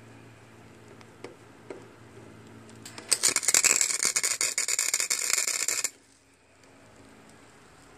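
Wire-feed welder arc crackling and sizzling for about three seconds, starting about three seconds in, as a bead is laid joining a steel drag link to a rod. A low steady hum sounds before and after the weld.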